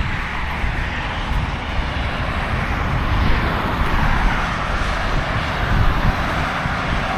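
Aprilia Tuareg 660's parallel-twin engine running under way, mixed with heavy wind rush on the microphone, getting steadily louder as the bike gathers speed.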